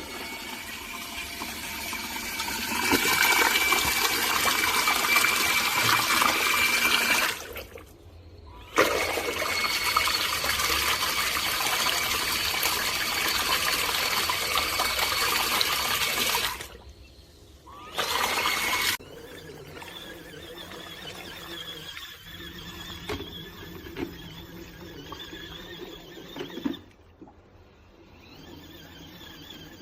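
Water running hard in three spells, the first two several seconds long and the third brief, then a quieter, uneven splashing.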